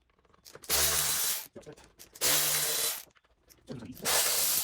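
A power tool, likely a cordless driver, running in three short bursts of under a second each while the screws come out of the hedge trimmer's clutch cover.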